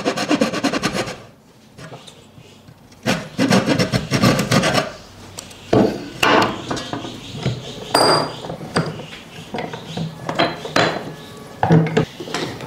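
Tools working a piece of wood: a rapid, even run of strokes that stops about a second in, then irregular rubbing and scraping strokes mixed with sharp knocks.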